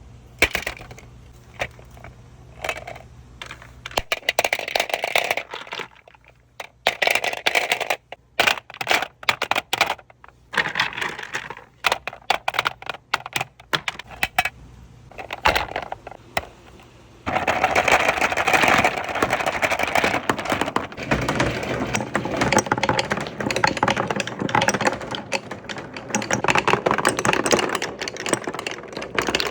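Many marbles rolling and clacking down a wooden marble-run track. At first there are separate runs of clicks and rolling with short pauses between them; a little past halfway it turns into a dense, continuous clatter.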